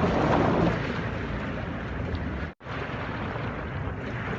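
Rushing floodwater of the swollen Narayani river, a steady noise mixed with wind buffeting the microphone. The sound drops out abruptly for a split second a little over halfway through.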